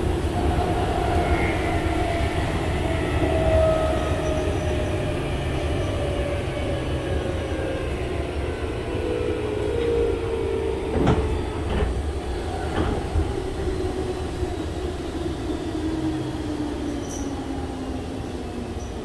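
Inside a Meitetsu 5000 series electric train: the traction motors of its field-chopper-controlled running gear whine, the whine falling slowly in pitch as the train slows, over a steady rumble of wheels on rail. A few sharp rail-joint knocks come about two thirds of the way through.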